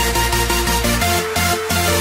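Background electronic dance music with a steady bass line and repeating synth notes.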